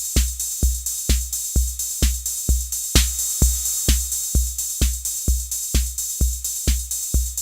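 Roland TR-606 Drumatix analog drum machine playing a loop: a deep bass-drum hit at a steady tempo, a little over two beats a second, over a constant high hiss.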